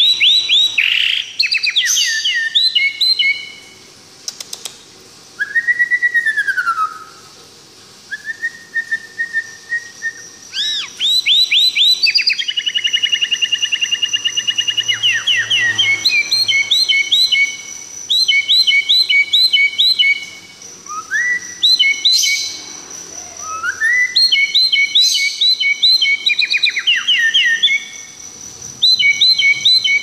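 A shama singing a loud, varied song: fast runs of repeated chirping notes mixed with clear whistled notes that slide up and down. It breaks off briefly twice in the first ten seconds, then sings almost without pause.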